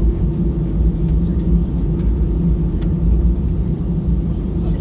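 Airbus A320-214 cabin noise while taxiing after landing: a steady low rumble with a constant low hum from the CFM56 engines at idle, heard from a seat inside the cabin.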